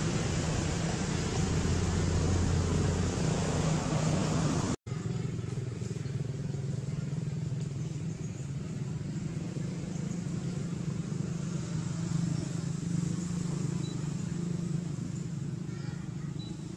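Steady outdoor background noise with a low, even hum of distant motor traffic. It drops out for an instant about five seconds in, and after that the hiss is softer.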